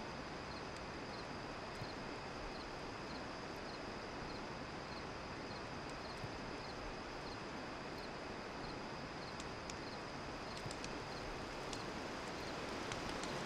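Night ambience: a cricket giving a short, high chirp about every two-thirds of a second over a steady outdoor hiss, with a few faint crackles from a campfire.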